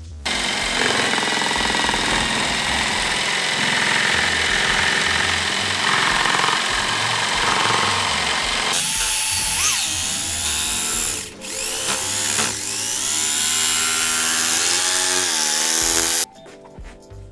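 Corded handheld power tool cutting into a car seat's plastic side trim. It runs steadily at first, then its pitch rises and falls as it works through the cut, with a brief stop partway through, and it cuts off abruptly near the end.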